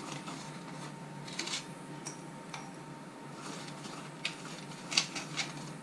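Light clicks and taps of a silicone pastry brush against a small bowl of egg yolk and on the pastry while glazing, scattered and irregular, the sharpest about five seconds in, over a steady faint room hum.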